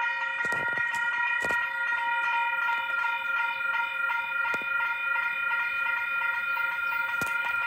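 Electronic warning alarm of a railway pedestrian level crossing, a steady multi-tone sound at an unchanging pitch, sounding ahead of an approaching train.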